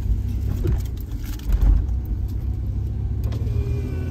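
Car running, a steady low rumble of engine and road noise heard from inside the car, swelling briefly about a second and a half in.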